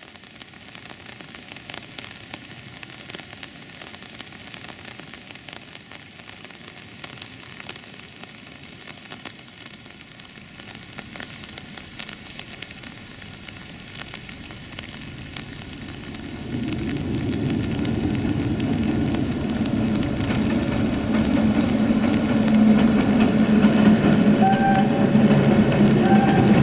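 Steady rain hiss; about two-thirds of the way in, the Sulzer-engined CFR 060-DA (LDE2100) diesel-electric locomotive hauling a passenger train comes in as a low engine rumble with a steady drone, growing louder toward the end. Two brief high tones sound near the end.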